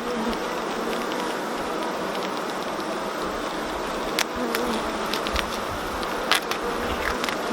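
Honeybees buzzing steadily from an open hive, a queenless colony with a laying worker, with a few sharp clicks and knocks, mostly in the second half.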